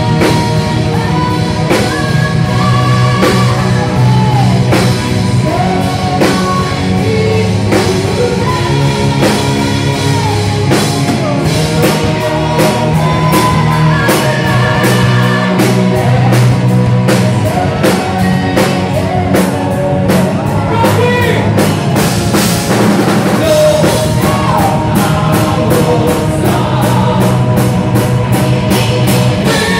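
A metal band playing live at full volume: drum kit, distorted electric guitars and bass, with sung vocals over them.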